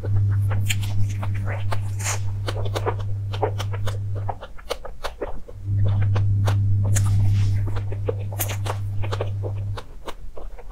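Close-miked chewing and wet mouth smacks of someone eating a soft filled crepe, many small clicks in quick succession. Under them runs a steady low hum that cuts out about four seconds in, returns a second and a half later and drops out again near the end.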